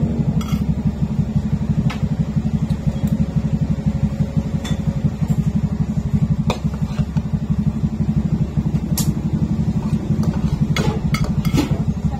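A steady, low, rapidly pulsing motor drone, with occasional light clinks of spoons on plates and bowls.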